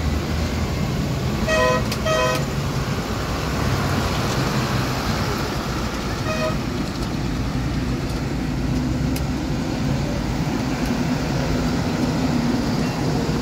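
Tractor engines running as a procession of tractors passes close by, with a horn tooted twice in quick succession about a second and a half in and once more about six seconds in.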